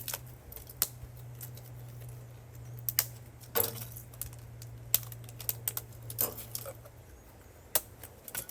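Irregular small clicks and clatters of broken plastic calculator pieces being handled and picked through, over a steady low hum.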